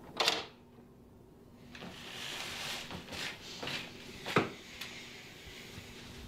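Sounds of someone moving about a small kitchen: a sharp knock about a quarter second in, then a hiss under several knocks and clunks like cupboard doors and drawers being opened and shut, the loudest about four seconds in.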